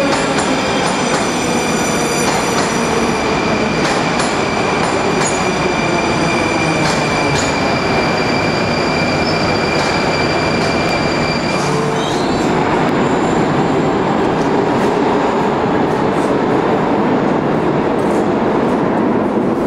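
Moscow metro train running into the station and slowing: a loud, even rumble of wheels on rail, with a motor tone falling in pitch as it brakes and a steady high squeal that stops a little past halfway.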